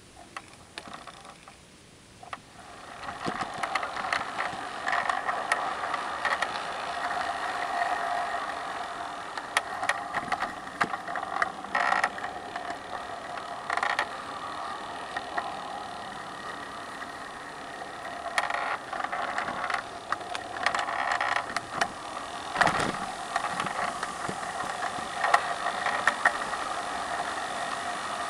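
Large-scale garden-railway model of an ALCO FA1 diesel locomotive starting off about two and a half seconds in, then running steadily along the track, heard from the freight car coupled to it: a steady mechanical whir with rattling and scattered sharp clicks and knocks of the wheels on the rails.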